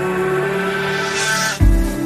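Background electronic music: a held chord with a swell that rises through the second half, then a heavy deep bass hit near the end.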